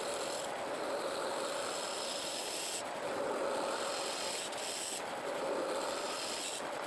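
Wood lathe spinning a cumaru log blank while a hand-held gouge cuts across its face: a continuous hissing scrape of the tool on the wood, brightening and easing with each pass about every two seconds.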